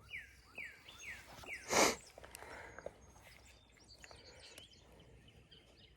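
A songbird gives a quick run of about five falling chirps in the first second. A little later comes a short, loud rustling burst, then only faint scattered ticks over quiet outdoor background.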